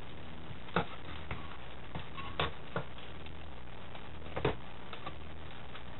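Scattered clicks and knocks of hands prying at the clip that holds a large potentiometer on an old stereo's front-panel board, over a steady low hum. The loudest knock comes about four and a half seconds in.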